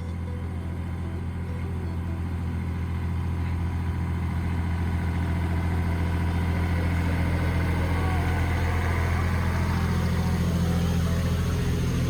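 A vehicle engine running steadily with a low hum, growing gradually louder.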